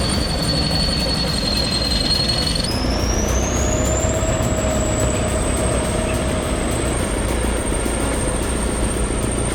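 Heavy earthmoving machine running steadily with a deep rumble and a high-pitched whine. About three seconds in the whine rises in pitch, then holds.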